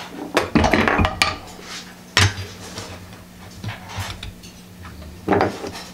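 Metallic clinks and knocks of a hand-bent copper cookie cutter and hand tools being handled and set down on a workbench: a handful of sharp strikes, a cluster in the first second, one about two seconds in and one near the end. A faint steady hum runs underneath.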